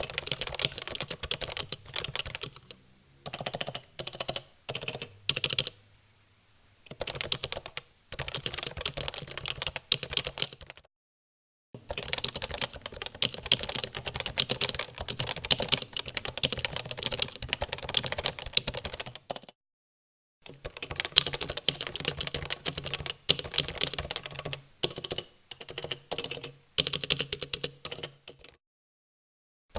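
Typing on a well-worn Realforce 87U keyboard with Topre switches, in a CNC-machined aluminium case: quick runs of keystrokes, sparse at first and then fast and steady. The typing comes in three passages split by short pauses, as the case is tried with and without a foam liner and risers.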